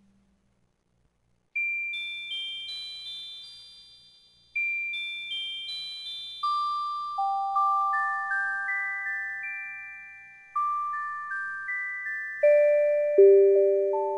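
Background music: a slow music-box melody of single struck notes that ring and fade. It comes in about a second and a half in with high notes, and the tune works its way lower toward the end.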